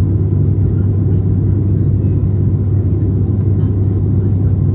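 Steady cabin drone of an ATR 72-600 in flight: its Pratt & Whitney PW127M turboprops and six-bladed propellers give a loud, even low hum over a deep rumble.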